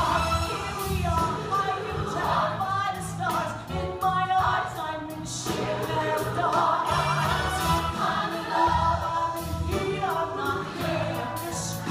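Musical-theatre show tune with a band accompaniment and several voices singing together.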